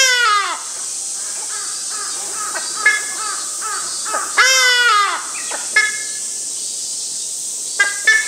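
Hadada ibis calling loudly: two long, harsh calls, each falling in pitch, one at the start and another about four seconds in.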